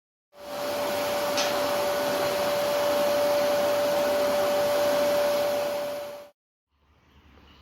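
Vacuum cleaner running steadily with a constant motor whine, then cutting off about six seconds in.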